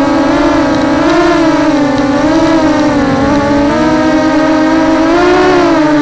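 Brushless motors and propellers of a small 200 mm FPV racing quadcopter whining loudly, heard up close from the camera mounted on the craft. The pitch wavers up and down as the throttle changes.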